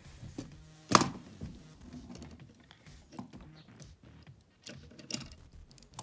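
Plastic Lego pieces clicking and knocking as they are handled and fitted together, with one sharp click about a second in and a few lighter clicks later.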